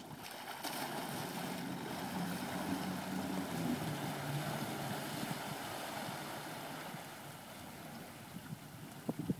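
Volvo Penta 5.0 GL V8 sterndrive of a Glastron SX209 cuddy cabin running at low speed as the boat passes. It makes a steady low engine hum over water and wind noise, loudest over the first few seconds and easing off after about seven seconds.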